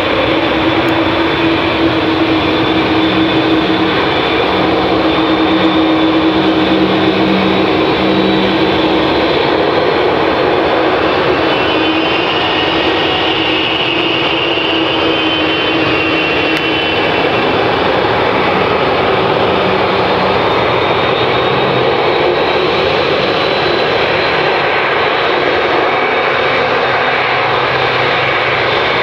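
Boeing 787 jet engines running at low taxi power as the airliner rolls along the taxiway: a steady, loud jet rumble with a constant hum, and a high whine that swells for a few seconds near the middle.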